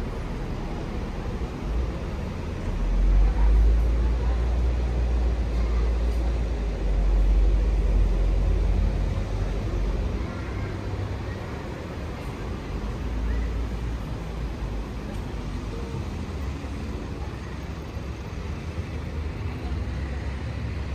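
City street traffic passing, with a deep rumble of passing vehicles that swells about two seconds in and eases off after about ten seconds.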